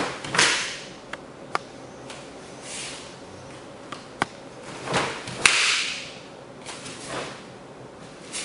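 Karate uniform snapping and swishing with the fast strikes and turns of a solo kata: a few sharp cracks and several short swishes, the loudest about five and a half seconds in.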